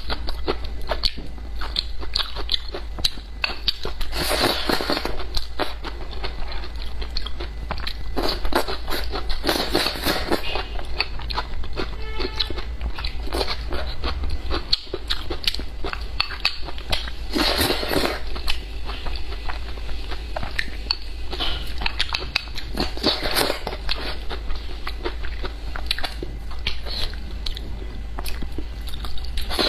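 Close-miked chewing and biting of a person eating spicy chili-coated tofu with rice: a steady run of small mouth clicks, with louder bouts of chewing every five or six seconds.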